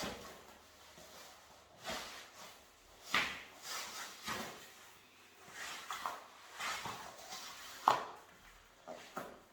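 Wetsuit gear being pulled on by hand: irregular rubbing and rustling of neoprene and fabric, with a sharp knock about eight seconds in.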